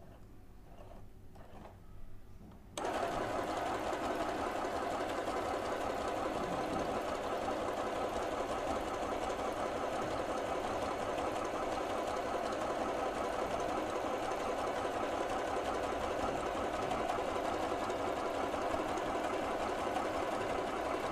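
Huafeng FHSM-618 household sewing machine running steadily as it sews a zigzag stitch through fabric. It starts abruptly about three seconds in, after a few faint handling ticks.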